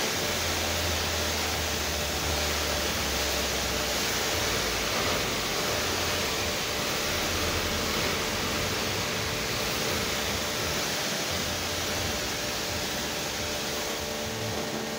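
Koblenz 1650 psi electric pressure washer running steadily, the hum of its motor and pump under the hiss of the water jet spraying onto concrete.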